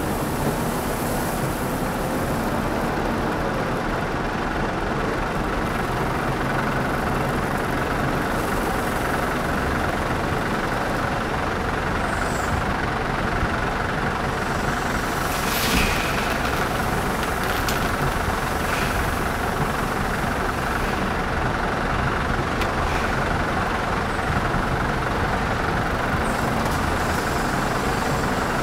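Heavy diesel engines of a Scania R580 V8 truck and a Volvo wheel loader running steadily while the loader works beside the truck. A brief sharp sound comes about halfway through as the loader tips its bucket over the truck.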